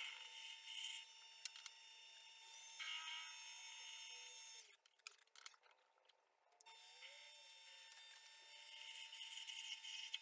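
Small metal lathe running faintly with a steady motor whine, the cutting tool hissing in short spells as it works a brass knob. About halfway through the lathe stops for a couple of seconds, then starts again.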